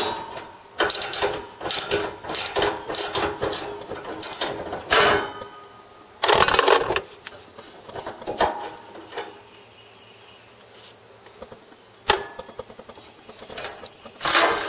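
A ratchet and socket working a mower's hood bolts: quick runs of metal clicking and rattling, a louder clatter of metal on metal partway through, and a single sharp click near the end.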